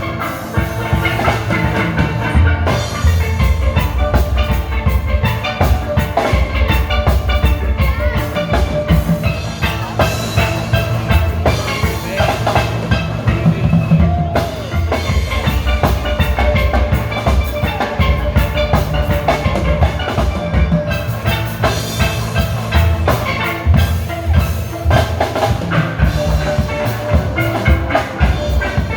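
A steel band playing live: steelpans ringing out the melody and chords over a drum kit keeping a steady beat.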